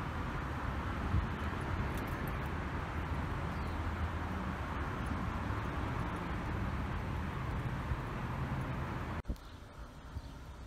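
Steady low rumble of city traffic noise, which cuts off abruptly about nine seconds in to a quieter background.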